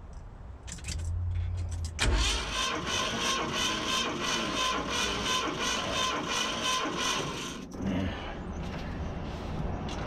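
Ford 460 big-block V8 cranked over on the starter for a compression test: the starter whines steadily while the engine turns over with an even beat of about three to four pulses a second, lasting about five and a half seconds and stopping suddenly. It is a worn engine that gives low readings.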